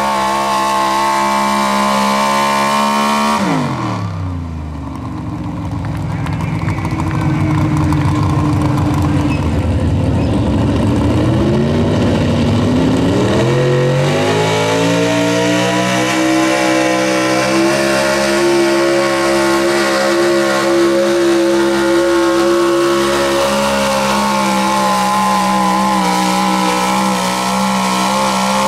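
Pulling trucks' engines at high rpm under full load, dragging a weight-transfer sled. The supercharged engine runs flat out, then drops off sharply about three seconds in as its pull ends. After a low rumble, a modified gas pickup's engine revs up and holds high rpm, falling away again at the very end.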